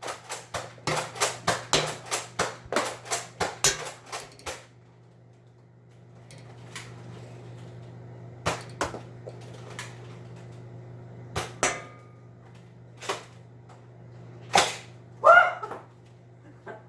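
Rapid plastic clacking of a Nerf Tri-Strike dart blaster being primed and fired, about four clacks a second for the first four seconds, then scattered single clicks and knocks.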